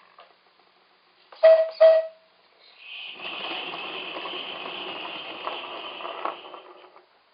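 Accucraft NGG16 Garratt model locomotive's resonator whistle giving two short toots, then the locomotive running on compressed air, its exhaust hissing steadily for about four seconds before it stops.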